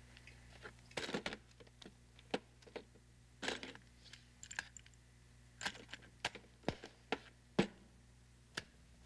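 A portable cassette tape recorder being handled on a desk: a series of irregular sharp clicks and clunks over a low steady hum.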